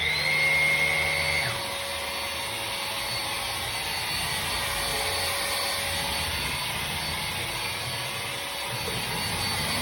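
HART 20 V cordless stick vacuum switching on: its motor whines quickly up to speed, then runs steadily with a high whine over the rush of air. It is louder for the first second and a half, then settles a little lower.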